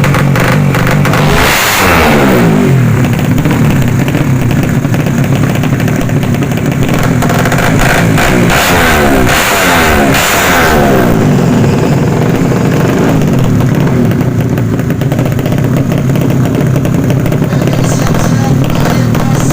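Tuned 200 cc underbone drag-racing motorcycles with horizontal engines revving hard. The engine pitch sweeps down as bikes pass about two seconds in, and again around nine to eleven seconds, over a steady din of engines.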